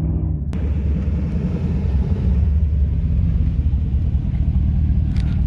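Off-road vehicle driving, a loud, dense low rumble of engine and running gear. A sharp click comes about half a second in.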